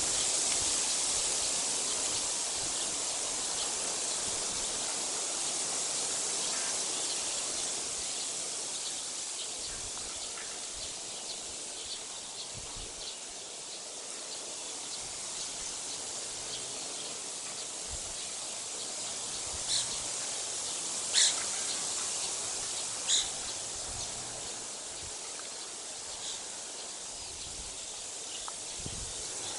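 Steady outdoor background hiss with no speech. Three short, sharp sounds stand out about two thirds of the way in, a second or two apart, and a few faint ticks come before and after them.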